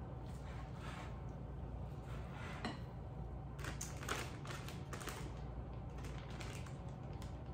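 A spatula scraping thick egg-yolk filling from a mixing bowl and pushing it into a plastic zip-top bag, with the bag crinkling: a string of short scrapes and rustles, busiest about halfway through.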